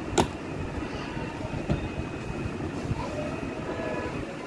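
A sharp plastic click as the latch of a hard plastic Ingco tool case snaps open, then a few fainter clicks and knocks as the lid is lifted. A steady low rumble runs underneath.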